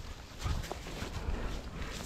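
Footsteps through dry leaves and brush, a few soft scattered crackles, over a low rumble of wind on the microphone.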